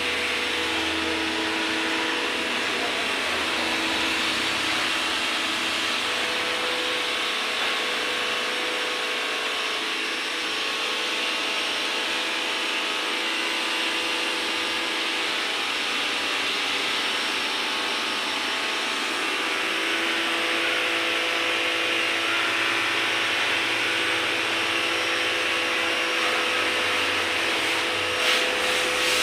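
Pressure washer running steadily: a constant motor hum under the hiss of the water jet as a motorcycle and scooter are sprayed down.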